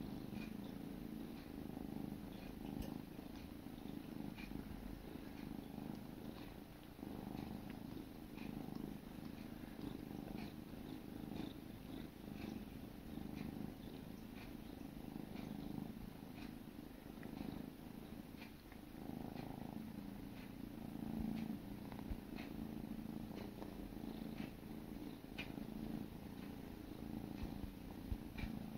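Kittens purring steadily, with small, frequent clicks of their tongues licking fur as they groom each other.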